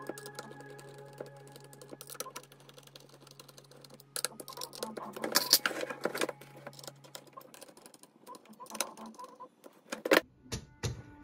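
Small clicks and rattles of a screwdriver and 3D-printed plastic arm parts being handled and fitted together, busiest in the middle, with a few sharp knocks near the end.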